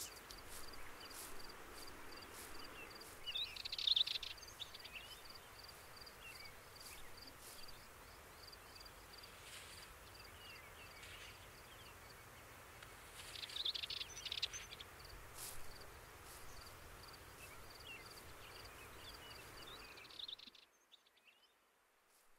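Woodland ambience: a steady low hiss with birds chirping, loudest in short flurries about four seconds in and again around fourteen seconds. A faint high pip repeats evenly underneath. The sound drops away to near silence shortly before the end.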